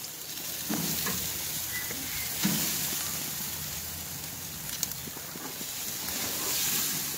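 Striped bass and bacon sizzling on a hot grill grate in a steady hiss, with a few light knocks about 1, 2.5 and 5 seconds in.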